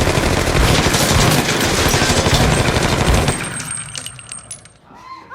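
Rapid automatic gunfire in a long continuous burst that stops about three seconds in, followed by a few scattered clicks as it dies away.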